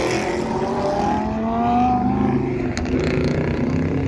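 Car engine accelerating hard as it pulls away, its pitch rising steadily for about a second midway. Near the end a lower engine rumble comes up as another vehicle approaches.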